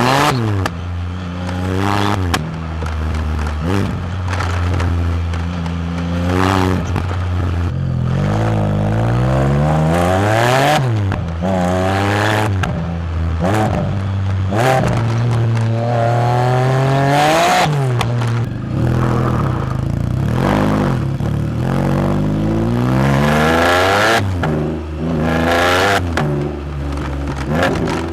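Can-Am Spyder F3-S's Rotax 1330 cc inline three-cylinder engine idling through its exhaust and being revved again and again, its pitch climbing and dropping back to idle about a dozen times.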